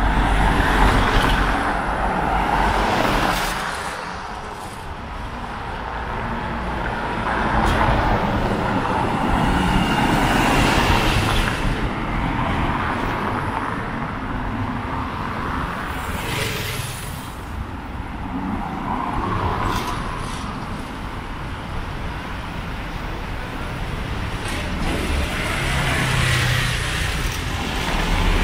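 Road traffic: vehicles passing close by one after another, each swelling up and fading away, several times over.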